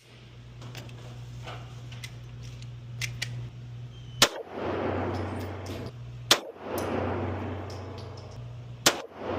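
Three loud handgun shots at a shooting range, roughly two seconds apart in the second half, with a few fainter pops before them and a steady low hum underneath.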